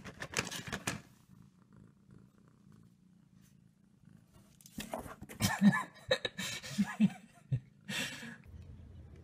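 A cat hidden under kitchen cabinets making short, low-pitched vocal sounds in a run of bursts from about halfway in, after a quiet stretch.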